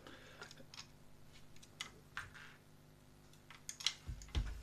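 Faint, scattered clicks and light rattles from a plastic brick-built model ship as it is held and handled, with a dull thump near the end.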